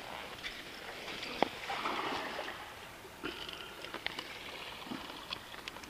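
Scattered light clicks and handling noise from hands working a wooden stake and a metal fish stringer clip, over small waves washing on the sandy shore.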